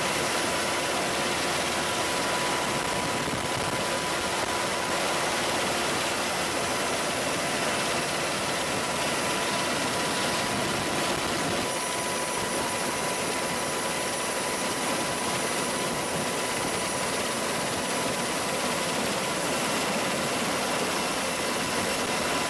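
AH-64 Apache helicopters' twin turboshaft engines running steadily: an even rushing noise with thin, high turbine whines, one more whine joining about halfway through.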